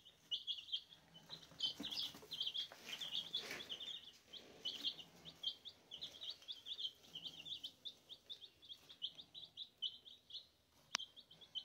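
Baby chicks peeping steadily in a brooder, many short high chirps several a second overlapping, their normal contented chirping. A single sharp click near the end.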